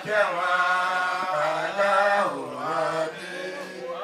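A man chanting an Islamic prayer, drawing out the words in long wavering melodic notes.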